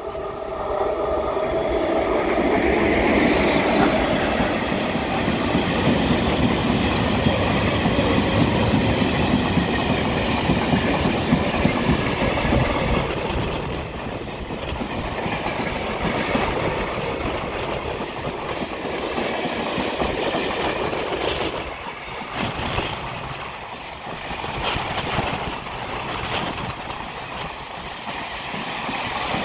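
Freight train of double-deck car-carrier wagons running past close by: a loud, dense rumble of steel wheels on the rails, with a wheel squeal fading out in the first couple of seconds. From about halfway it grows a little quieter and the wheel beats over rail joints come through as a steady clickety-clack.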